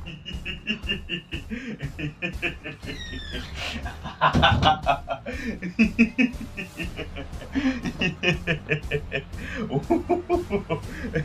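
A man snickering and chuckling over music with a steady beat.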